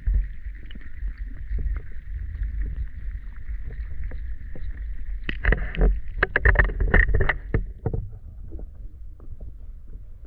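Water sound picked up by a submerged camera: a constant low rumble with a steady hiss, and a cluster of sharp clicks and knocks from about five to eight seconds in.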